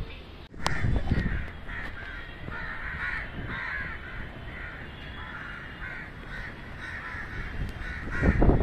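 Crows cawing over and over. A low rumble swells about a second in and again, louder, near the end.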